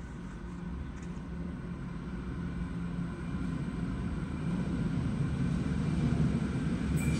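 Electric suburban train approaching through the tunnel into an underground station: a low rumble that grows steadily louder as it nears.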